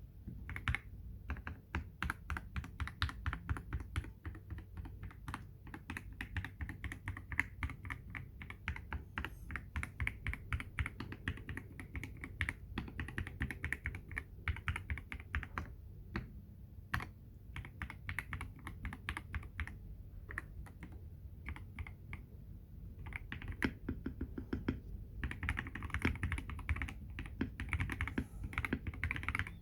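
Typing on a Feker IK75 V2 gasket-mount 75% mechanical keyboard fitted with lubed Everglide Water King linear switches, a polycarbonate plate and PBT XDA keycaps: a fast, continuous run of keystrokes.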